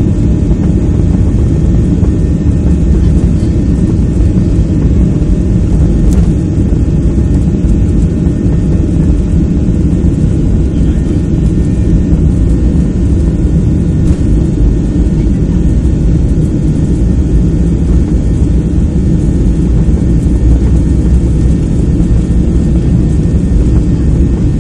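Boeing 737's CFM56 jet engines at takeoff thrust together with the rumble of the wheels on the runway, heard from inside the cabin during the takeoff roll. It is a loud, steady, deep noise with faint steady engine tones above it.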